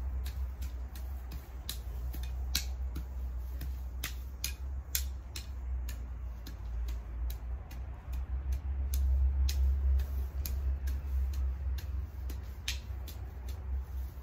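Grass and weeds being cut by hand close to the ground: a string of sharp, irregular snips and clicks, at times several a second, over a low steady rumble.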